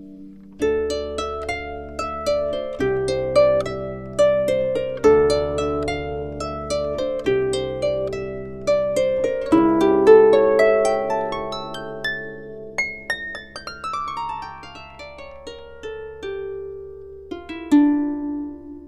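Instrumental background music: runs of quick plucked, harp-like notes over low held bass notes that change about every two seconds.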